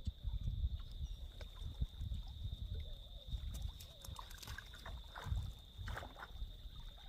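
Outdoor ambience: uneven low rumbling on the microphone under a steady high-pitched whine, with scattered light clicks.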